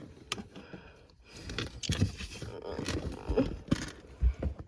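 Plastic fidget toys being rummaged through in a basket: scattered knocks, clicks and rustling.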